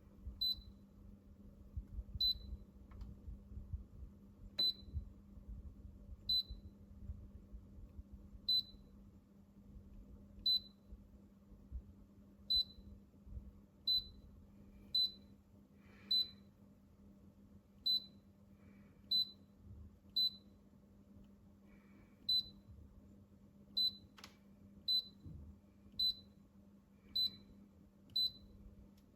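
Electronic beeper of a Philips HU2716/10 humidifier giving short, high beeps, one every second or two at uneven spacing, over a steady low hum.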